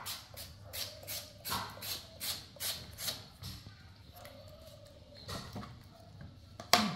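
Hand vegetable peeler scraping the skin off a potato in quick repeated strokes, about three a second, easing off halfway through. A single sharper knock comes just before the end.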